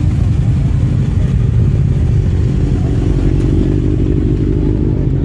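Motorcycle engines running steadily, a loud, even low drone with no revving.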